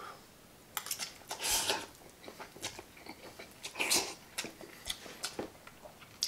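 A man slurping in a forkful of instant fried noodles, then chewing, with a run of small wet clicks from his mouth. Two short noisy slurps, one about a second and a half in and one near the four-second mark, then chewing to the end.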